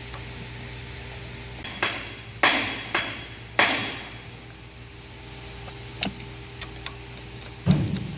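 Sharp metallic knocks, four loud ones close together, then a few lighter clicks and a duller thump near the end, over a steady low hum.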